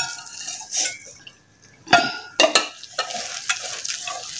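A hand mixing wet onion bhaji batter of sliced onions and gram flour (besan) in a stainless steel bowl: squelching and scraping against the bowl in irregular strokes, with a few sharp knocks about two seconds in.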